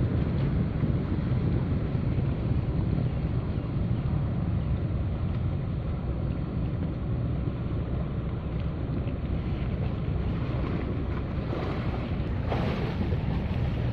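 Steady low wind rumble on the microphone mixed with the engine of a small harbour workboat motoring past across the water. A few louder rushes come near the end.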